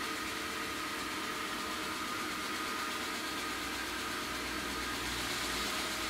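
LG Hom-Bot VRD830 robot vacuum running: a steady whirring hiss with a faint high tone from its motor and spinning brushes as it drives over a wooden floor, with a low hum building over the last two seconds.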